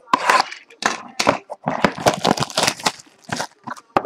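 Clear plastic shrink wrap being torn and crinkled off a sealed box of trading cards: a run of irregular crackling rips and crinkles.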